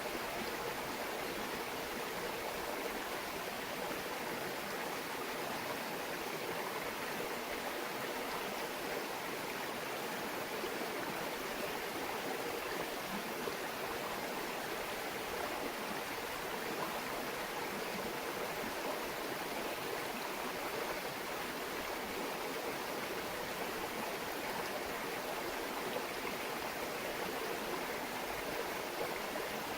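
Small mountain brook babbling steadily: an even, unbroken wash of running water.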